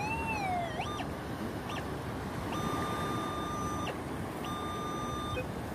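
Metal detector signalling a target: a wavering tone that rises and falls, two short chirps, then two steady beeps of about a second each as the coil passes over buried metal.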